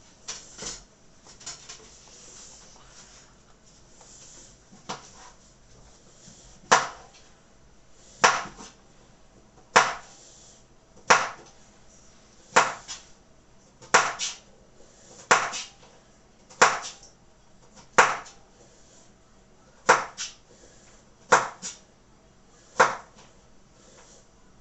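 Kitchen knife chopping a courgette into chunks on a chopping board: slow, single cuts knocking on the board, a few light ones at first, then about a dozen firm strokes roughly every second and a half.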